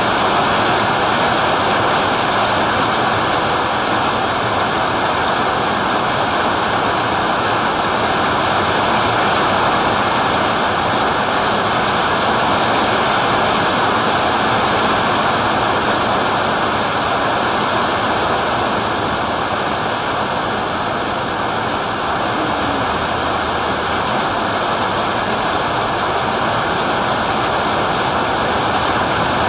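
Heavy thunderstorm rain pouring down steadily: a dense, even rush of noise.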